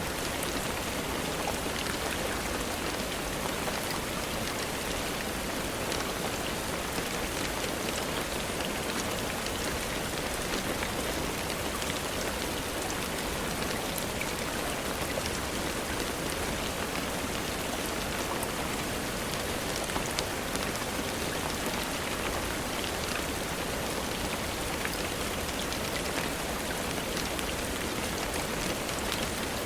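Steady rainfall, an even hiss of rain on a surface with faint scattered clicks.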